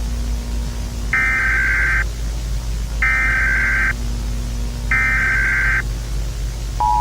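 Emergency Alert System SAME header: three identical bursts of digital data tones, each about a second long with a second's gap between them. Right at the end the steady two-tone EAS attention signal begins. A low hum runs underneath.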